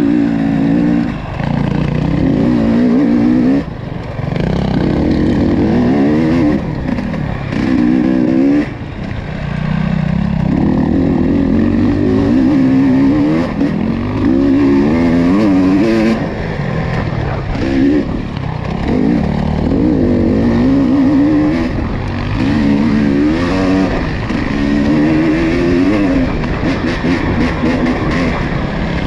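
ATV engine running hard, its pitch climbing and falling over and over as the throttle is opened and eased, with brief lulls about 4 and 9 seconds in.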